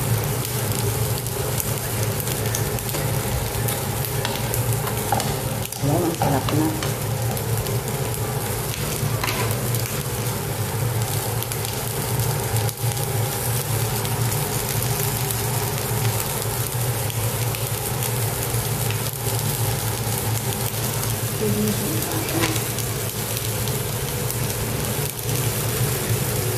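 Green beans and squash sizzling steadily as they fry in a pan, over a steady low hum, with a few brief knocks of the stirring spoon against the pan.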